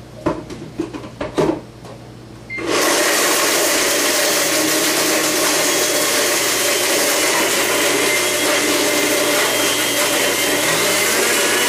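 A few clicks and knocks as the lid goes onto a countertop blender, then about two and a half seconds in the blender motor starts and runs steadily, blending olive oil and cashews. Near the end its pitch rises.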